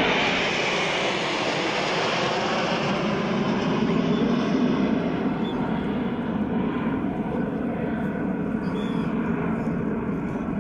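Formation of jet aircraft passing overhead: loud, steady jet-engine noise with a falling pitch as they pass, then slowly fading as they climb away.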